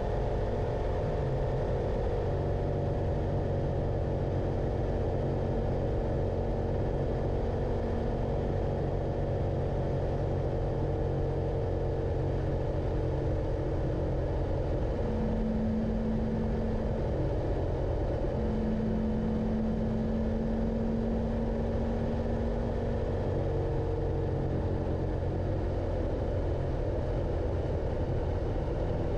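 Motorcycle engine running on the move over a steady low rumble, its pitch shifting several times as the revs change.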